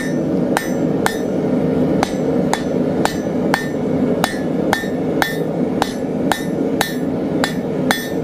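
Hand hammer striking hot 1/2-inch square steel bar at the edge of the anvil, drawing out a point: a steady run of about two blows a second, each with a short ring, over a steady low rush.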